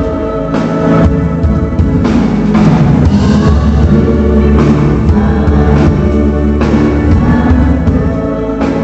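Worship band playing an instrumental passage of a song, led by a drum kit with steady pitched instruments under it and no singing.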